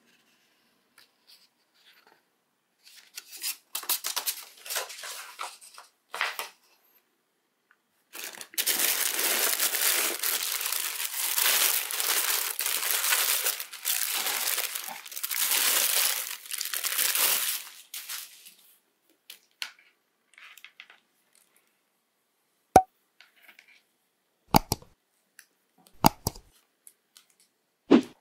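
White tissue wrapping paper crinkling and rustling as it is pulled open and handled around a sneaker, loud and continuous for about ten seconds after a few shorter rustles. Near the end there are a few sharp light taps as the shoe is handled.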